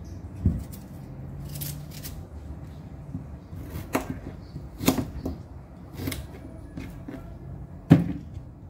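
Knife peeling and cutting chayote by hand over a stainless steel bowl, with a series of sharp clicks and knocks as the knife and pieces hit the bowl, the loudest near the end.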